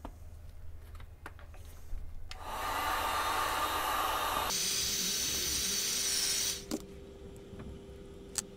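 Electric heat gun blowing for about four seconds to soften the glue under a shoe heel's leather covering. Its airflow noise shifts to a higher hiss with a steady hum about halfway through, then it switches off. Light handling clicks come before it and a single sharp click comes near the end.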